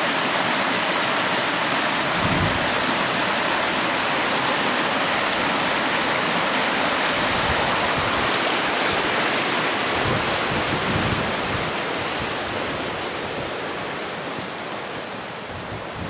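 River rapids: water rushing in white water over rocks, a steady loud rush that slowly fades over the last few seconds.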